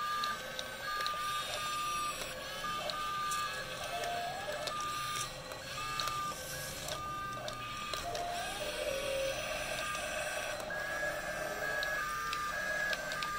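Whine of the small electric gear motors in a toy remote-control excavator, starting and stopping in short runs as its boom and arm are moved, some runs rising in pitch as a motor spins up.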